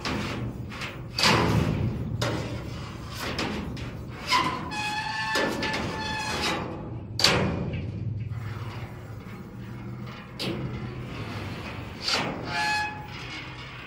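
Steel roll-off dumpster played as a percussion instrument: heavy strikes on its metal walls about every three seconds, each leaving a ringing metallic tone, with lighter taps in between.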